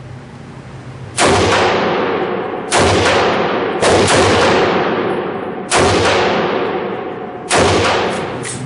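Five single gunshots from an AR-15 pistol fitted with a side charger, fired at an uneven pace about a second or two apart, each followed by a long fading echo.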